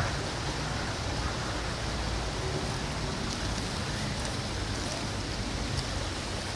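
Steady rushing of running water, an even hiss with no distinct events.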